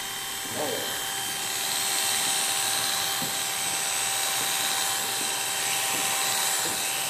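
Electric hair clipper running as it cuts hair over a comb (clipper-over-comb technique), a steady motor hum and blade buzz that grows a little louder about two seconds in.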